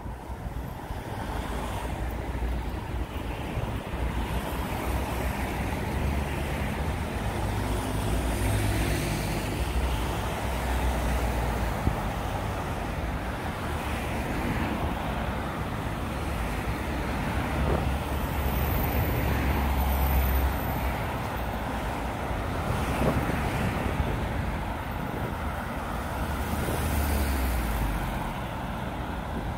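Road traffic on a city street: cars and heavier vehicles driving past with tyre noise and engine rumble, swelling and fading as each one goes by.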